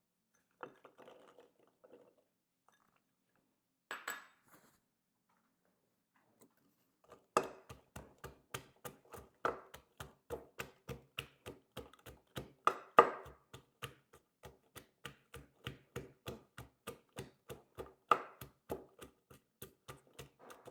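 A clove of garlic being crushed by hand with steady, evenly spaced strikes, about two to three a second, starting about a third of the way in after a few faint taps and a single knock.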